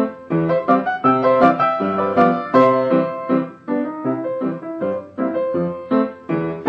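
Piano music: a tune of short, separate notes, about three or four a second, with no pause.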